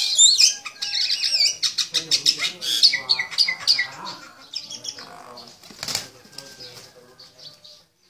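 A small bird calling in rapid, shrill chirps and squawks that die away over the last few seconds, with one sharp knock about six seconds in.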